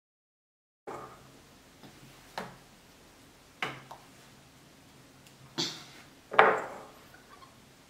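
A few light clinks and knocks of a small salt bowl and plate on a tabletop as a child's fingers dip in for pinches of salt, starting about a second in. The fourth knock is the loudest and rings on briefly.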